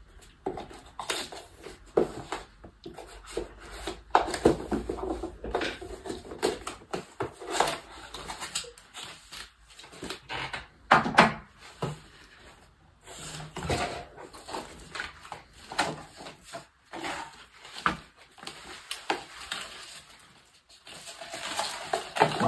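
Handling noises of a cardboard presentation box being unpacked: a pointed tool scraping and tapping at the sealed label, the lid lifting off, and card and paper inserts shifting and rustling as they are taken out. The clicks and scrapes come irregularly.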